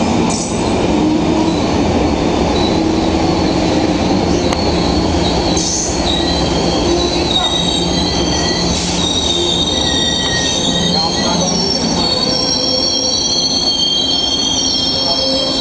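Amtrak stainless-steel passenger coaches rolling past, a loud, steady rumble of wheels on rail. From about six seconds in, high, wavering squeals from the wheels join and keep going.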